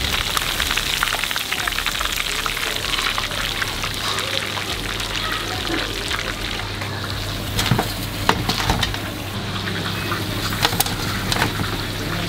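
Hot oil crackling and sizzling as a batch of marinated quail deep-fries in a wok, the pieces fried through and ready to be lifted out. A few louder clicks stand out about eight seconds in.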